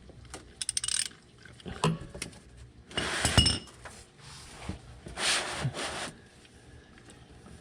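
Oil filter being worked loose from a Duramax LM2 engine with hand tools: a quick run of clicks about half a second in, then scraping, rubbing and clinks of metal and plastic. Two louder rushing scrapes come near the middle and again past the five-second mark.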